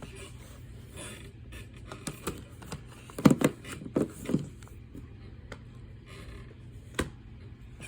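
Plastic movie disc cases and packaging being handled: scattered clicks and rustling, a cluster of louder knocks about three to four seconds in, and one sharp click near the end.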